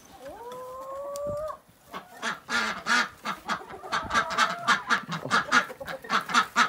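Chickens and ducks in a coop calling in a quick run of short squawks and clucks, several a second. It opens with one long call that rises and then holds for about a second and a half.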